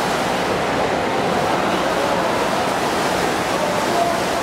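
Steady din of an indoor pool during a swimming race: water splashing from the swimmers, mixed with spectators' voices.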